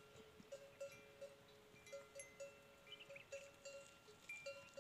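Faint ringing of livestock bells, irregular short notes several times a second over a steadier lower ring.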